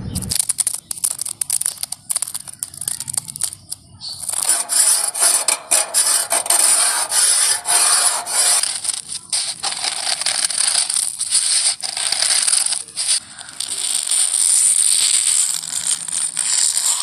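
A run of harsh scratching and scraping noises: fingernails scratching over a woven mat, then from about four seconds in a loud, high, hissing scrape of a small screwdriver tip dragged across a rusty metal surface, and near the end fingernails scratching a wall.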